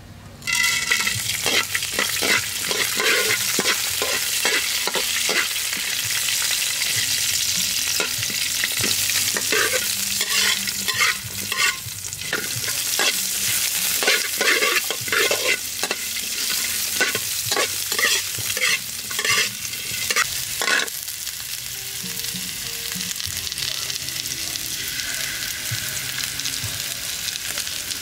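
Whole spices and sliced vegetables frying in hot oil in a wok, with a metal spatula stirring and scraping the pan. The sizzle starts suddenly about half a second in as the spices hit the oil; repeated scraping strokes run until about 21 seconds in, after which the sizzle goes on more steadily.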